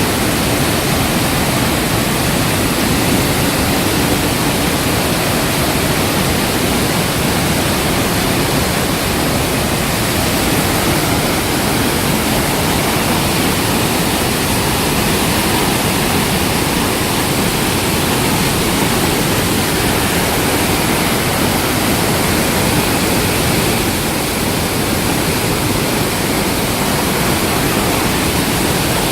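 Iguaçu Falls waterfall: a loud, steady rush of heavily falling water.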